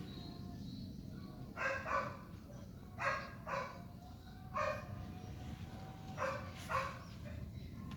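A dog barking: seven short barks, mostly in pairs, over a steady low background hum.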